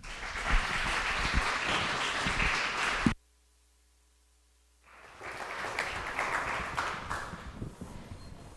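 Audience applauding. The sound cuts out abruptly about three seconds in for a second and a half, then the applause comes back and gradually dies away.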